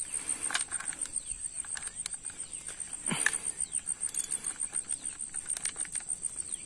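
A steady, rapidly pulsing high insect trill, like a cricket, runs throughout. Under it are soft crunching scrapes of hands kneading damp ground-rice carp bait in a plastic basin, with one sharper brief sound about three seconds in.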